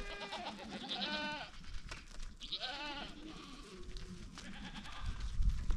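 Goat nannies bleating, several wavering calls a second or so apart, as they crowd around for feed. A low rumble comes in near the end and is the loudest thing heard.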